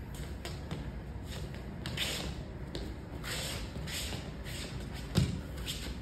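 Wrestling shoes shuffling and scuffing across foam wrestling mats during shadow-wrestling footwork, with short taps and scrapes. A single heavy thud comes about five seconds in.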